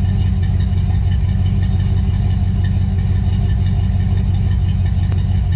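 Car engine idling with a loud, steady, deep rumble.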